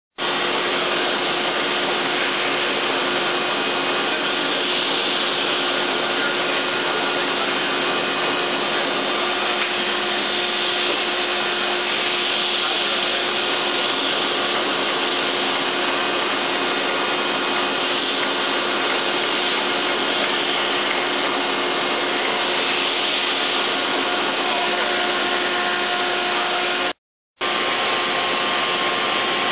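Steady motor whir of a Niles 168-inch vertical boring mill running, an even hum with a few steady tones in it, broken by a short gap near the end.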